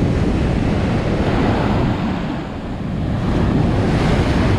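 Ocean surf breaking on a beach, with wind buffeting the microphone: a steady, loud rush that eases for a moment midway and then builds again.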